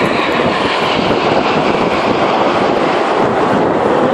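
Red Arrows formation of BAE Hawk jets passing: a loud, steady jet roar with a faint whine that falls in pitch as they go by, and wind on the microphone.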